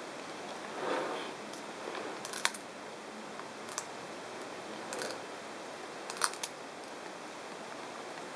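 Leopard tortoise biting and chewing a thornless prickly pear cactus pad: a few sharp, crisp snaps spread through, the loudest a little before halfway and two in quick succession about six seconds in.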